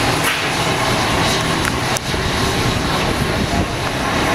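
Steady rushing noise with a low hum from a steam tank locomotive simmering while it stands, with a sharp click about two seconds in.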